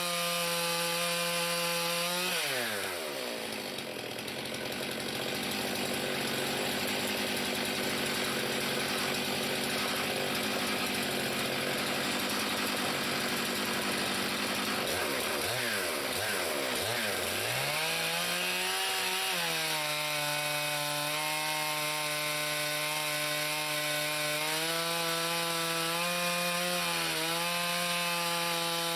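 Chainsaw on a chainsaw mill running at full throttle while ripping a log into boards. Its engine pitch drops sharply about two and a half seconds in and stays lower under a noisy cutting sound, wavers up and down past the middle, then climbs back to a steady high pitch for the last third.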